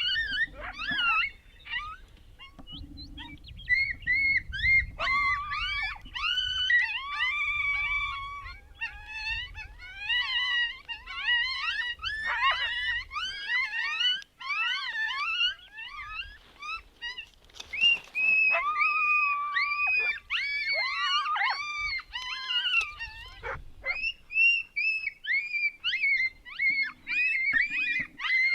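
Coyotes yipping and howling: many short rising and falling yips and drawn-out wails that overlap and keep going without a break.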